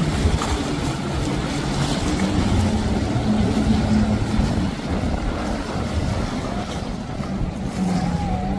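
Boat engines running at speed: a low, steady engine hum over the rush of churning water and wind.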